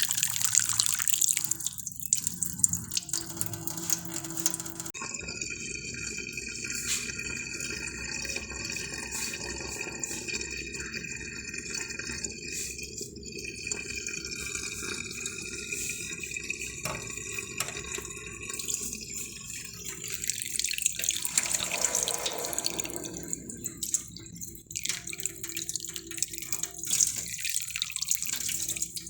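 Water running and splashing.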